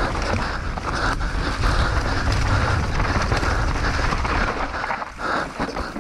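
Mountain bike descending a rough trail at speed: tyres running over dirt and rock, with constant knocks and rattles from the bike, and wind noise on the microphone. There is a brief lull about five seconds in.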